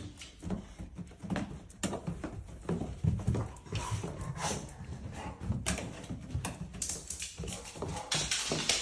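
A pet cat yawning and stretching: faint small vocal sounds among many short rustles and clicks of its movement.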